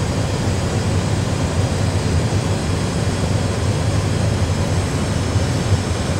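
Steady cockpit background noise of an Airbus A320 full flight simulator in cruise: an even low rumble of simulated aircraft noise.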